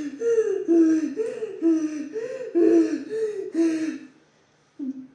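A child's voice imitating a bird: a run of two-note calls, a higher note dropping to a lower one, repeated about once a second for some four seconds, then one short call near the end.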